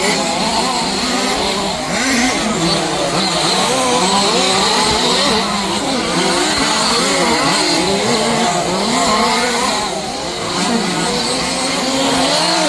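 Several 1/5-scale petrol two-stroke RC off-road cars racing, their small engines revving up and down over one another, with brief dips in loudness about two seconds in and near the end.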